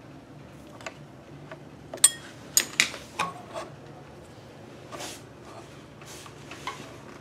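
Metal clinks and knocks from hand work on a sewing machine's electric motor and its pulley. About two seconds in comes a sharp, ringing clink, the loudest sound, followed by a quick run of four or five knocks within the next second and a half. Softer handling rustles follow.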